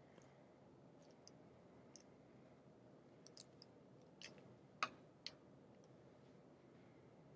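Near silence with scattered faint clicks and taps, three sharper ones a little past the middle.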